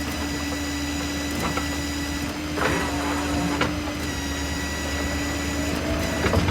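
Ford F-550's 6.7 diesel running with its PTO-driven hydraulic system working the service crane: a steady hum and an even whine, with a few sharp clicks and knocks from the crane gear, twice near the middle and once near the end.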